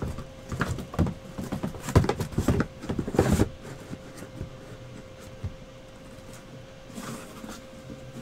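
Sealed 2015 Tier One trading-card hobby boxes being pulled out of a cardboard shipping case and set down: cardboard scraping and knocking, busiest in the first three and a half seconds, then quieter. A faint steady hum runs underneath.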